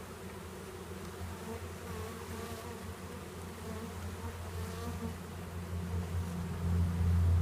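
Many honeybees buzzing together, stirred up while being installed into a new hive: a steady drone with individual bees' wavering flight tones drifting over it, growing louder near the end.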